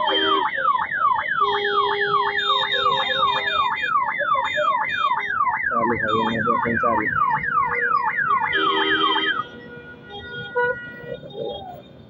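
Police-style siren fitted to an electric scooter sounding a fast yelp: a loud falling wail repeated about three times a second, which cuts off about nine seconds in.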